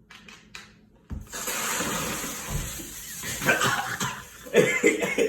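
A bottle of Coca-Cola erupting with Mentos: a sudden burst about a second in, then a fizzing spray of foaming soda for about two seconds, followed by a person coughing on the foam.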